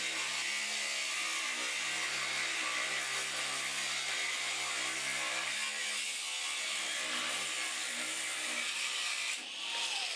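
Angle grinder with a cutting disc slicing through a clamped metal bar: a steady high grinding hiss over the motor's hum as the disc is worked back and forth along the cut. Near the end the cut finishes and the grinder is let off, its whine falling in pitch as the disc spins down.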